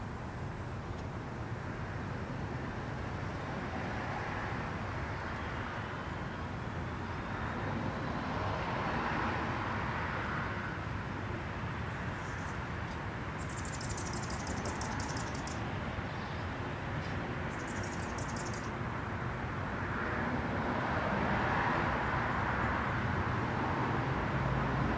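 Outdoor neighbourhood ambience: a steady low hum of traffic with two slow swells as vehicles pass. Around the middle, a high, fast rattling trill sounds twice, each for about two seconds.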